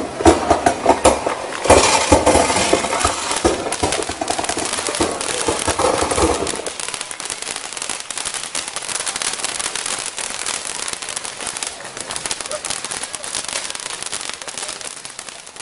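Firecrackers crackling: a dense string of small pops in rapid succession, with crowd voices over it until about six and a half seconds in, then the crackling alone, fading at the end.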